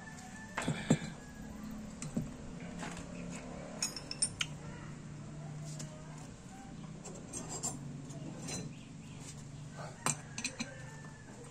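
Metal parts and hand tools clinking and knocking against a disassembled small motorcycle engine as the cylinder block is set down and a spanner is worked on the engine case: scattered, irregular taps, the loudest about a second in.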